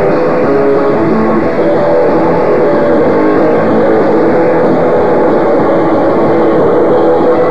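Live rock band with distorted electric guitars and drums, loud and dense. It is picked up by a camcorder microphone, so it sounds dull with little treble.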